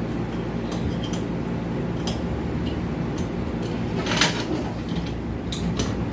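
Light clicks and taps of small tools and parts being handled during circuit-board repair work, with one louder scrape about four seconds in, over a steady low hum.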